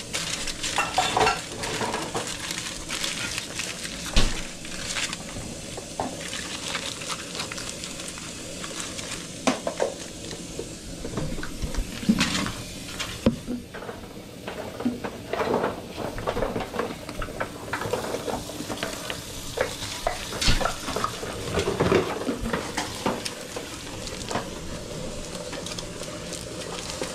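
Food sizzling as it cooks, with frequent clinks and scrapes of metal utensils handling it.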